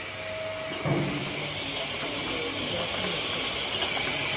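Automatic N95 mask production machine running with a steady hiss. There is a short knock about a second in, and a steady high tone joins near the end.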